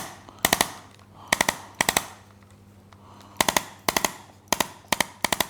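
Handheld chiropractic adjusting instrument firing sharp mechanical clicks in quick bursts of three or four, about eight bursts with short pauses between, used to stimulate the L5 nerve root. A faint steady hum runs underneath.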